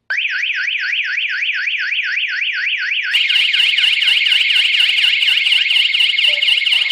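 GSM burglar alarm siren going off after the system was armed: a loud electronic warble sweeping rapidly up and down, about five sweeps a second, starting suddenly. About three seconds in a second, louder siren joins, its sweeps overlapping the first.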